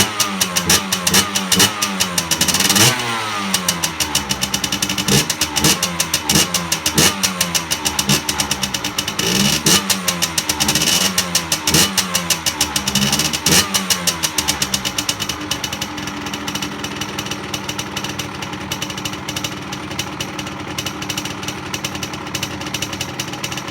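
Rieju MRT 50's 50cc two-stroke single-cylinder engine with its stock exhaust, being revved in short quick throttle blips that rise and fall in pitch. About fifteen seconds in it settles to a steady, quieter idle.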